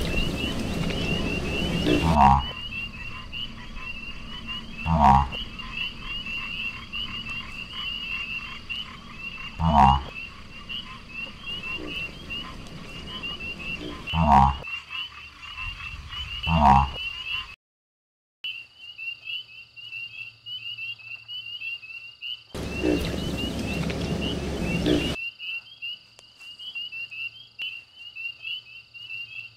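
Frog chorus: a continuous fast, high chirping trill with loud, short, low croaks every few seconds. A brief gap comes about midway, and a couple of seconds of rushing noise come later.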